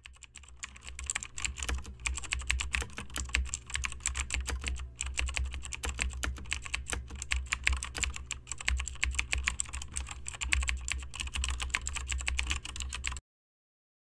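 Rapid, continuous typing on a computer keyboard, a dense run of key clicks over a low steady hum, stopping abruptly near the end.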